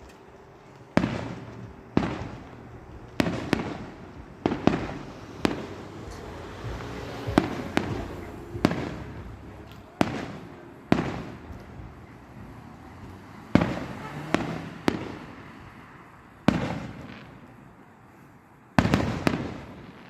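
Aerial fireworks going off in an irregular series of sharp booms, about fifteen in all, each dying away over a second or so with crackling between them.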